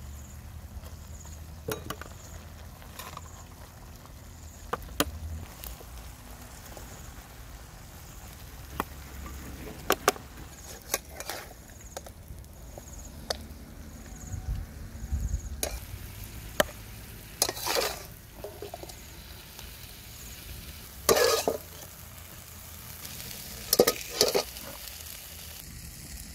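Metal spoon clinking and scraping against a steel pan as simmering chicken feet and cabbage are scooped out onto a plate. There are scattered sharp clicks, with longer scrapes about two-thirds of the way in and near the end.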